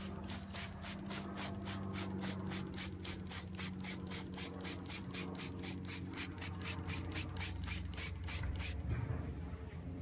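Plastic trigger spray bottle squirting sugar water onto a package of bees, in quick, even sprays of about four a second that stop near the end. A steady low hum runs underneath.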